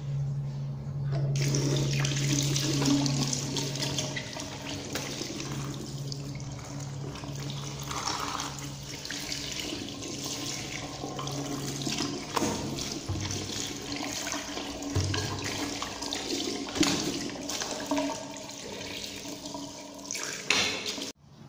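Tap water running onto a sneaker in a sink as a hand turns and rubs it to rinse out soap water, with a few short knocks as the shoe is handled. A low steady hum sits under the water for roughly the first twelve seconds.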